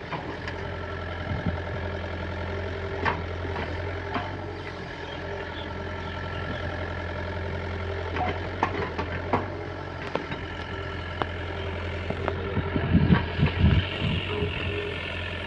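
Heavy diesel machinery engine running steadily, with scattered short clanks and a cluster of heavy low thumps near the end.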